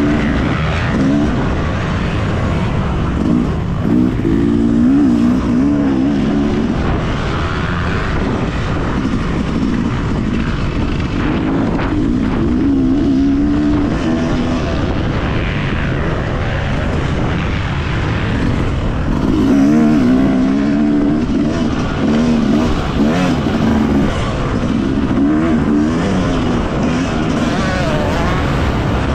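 Yamaha motocross bike engine heard from on the bike, revving up and down repeatedly as the rider works the throttle around the track.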